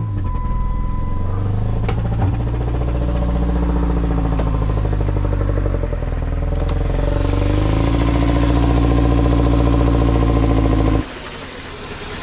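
2015 Jeep Patriot's four-cylinder engine running with its faulty throttle body being set open by hand. The engine speed rises about six seconds in and holds higher, then the sound cuts off suddenly near the end.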